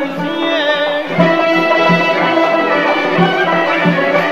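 Azerbaijani folk song: the singer ends a line, then about a second in instruments carry on with long held notes over a steady drum beat.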